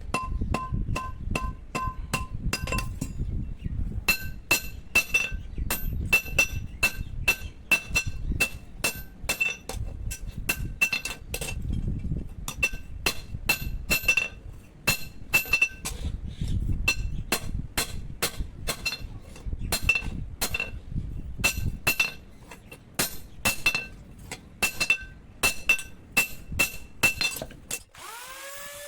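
Blacksmith's hand hammer striking steel on an anvil, forging a boti blade from an old power tiller harrow tine: steady ringing blows, about two a second, with a short pause near the start. A low rumble runs under the blows for most of the stretch, and a brief gliding tone comes in at the very end.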